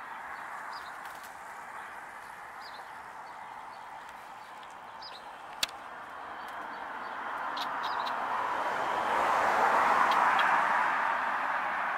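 Steady outdoor background noise that swells to its loudest about ten seconds in, as a vehicle passes. A few faint bird chirps and one sharp click come about halfway through.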